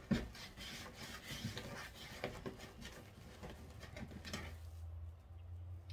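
Deco mesh rustling and crinkling as it is handled on a wreath form, with many small clicks, dying down about four and a half seconds in.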